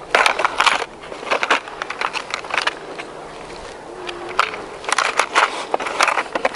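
A hard plastic tackle box being handled: irregular clusters of clicks, rattles and crackles from its lid, trays and a lure's plastic blister pack, with short pauses between them.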